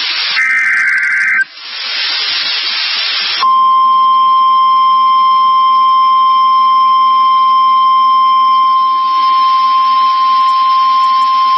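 NOAA Weather Radio Emergency Alert System signal: a raspy, buzzing SAME digital header burst about a second long, then about two seconds of radio static, then from about three and a half seconds in the single steady, high 1050 Hz warning alarm tone. The tone is the alert that sets off weather-alert receivers ahead of a warning message.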